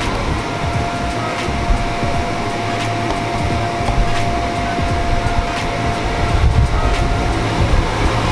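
Electric inflation blower of a bounce house running steadily: a constant rushing hum with a faint steady whine over it.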